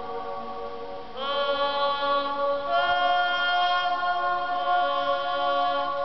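A woman singing long held notes into the dome of the Pisa Baptistery, each note hanging on in the dome's long echo so that new notes, about a second in and near three seconds in, sound together with the fading earlier ones as a chord.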